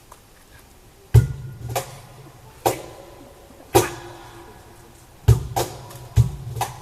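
Sparse percussive music: separate struck hits at uneven intervals of about a second, some with a deep low boom and some leaving a short ringing pitched tone.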